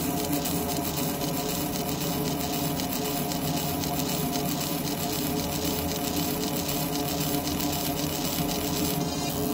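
Fiber laser engraver buzzing steadily as it makes rapid repeated passes over metal handcuffs. The high part of the sound shifts near the end.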